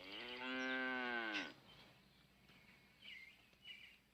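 A cow mooing once: a single call about a second and a half long whose pitch drops at its end.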